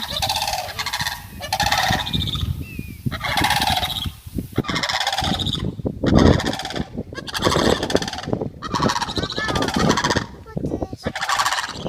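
A group of sandhill cranes calling loudly, their rattling calls following one after another with only short breaks.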